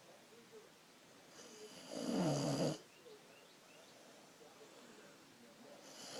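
Snoring in slow, regular breaths: one long snore about two seconds in with its pitch falling, and the next one starting near the end.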